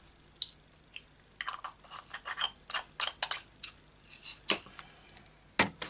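Rummaging for a metal brad among small craft pieces: a run of small clicks and clinks, with a sharper knock near the end.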